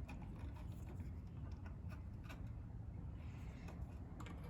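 Faint scraping and a few light clicks of multimeter test probes touching compressor terminals and ground, over a low steady hum. No continuity beep sounds: the start winding is not shorted to ground.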